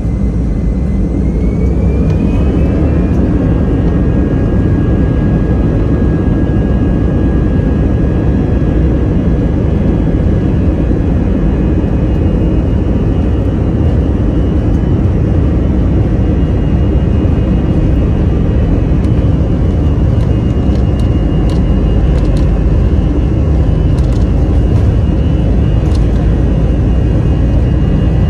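Jet airliner engines running steadily with loud, deep noise, and a thin whine that rises in pitch a second or two in.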